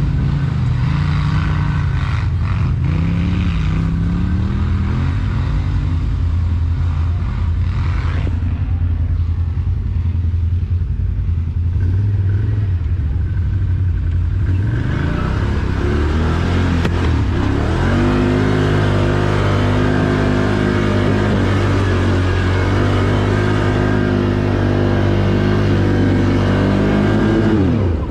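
ATV engine running under varying throttle. Its pitch wavers at first, climbs through the middle, holds steady and higher for about ten seconds, then drops sharply near the end.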